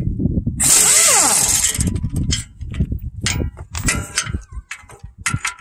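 Impact wrench running briefly with a hiss and a pitch that rises then falls as it winds down, followed by a string of metallic clanks and knocks from tools and bolts being handled.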